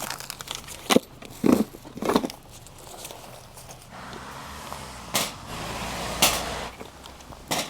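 Scattered knocks and clicks of kitchen gear and a watermelon being handled on a camp table. A steady low rush joins in about four seconds in and fades out near the end.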